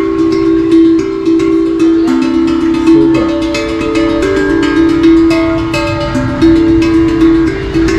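Steel tongue drum (happy drum) played by hand: struck notes at a slow, even pace, each ringing on and overlapping the next as the pitch moves between a few tones.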